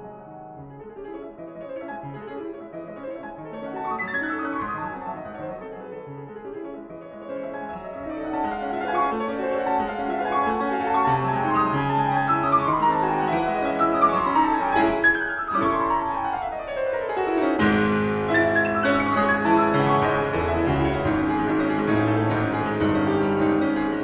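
Piano music, soft at first and growing louder about eight seconds in, with several quick descending runs of notes.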